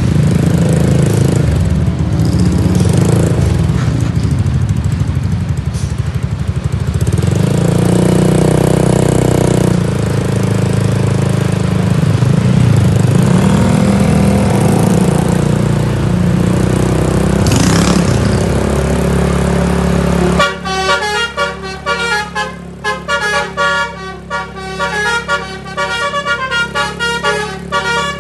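Intercity bus's basuri (telolet) horn sounding in long drawn-out blasts over the running engine. In the last several seconds a fast tune of short notes takes over.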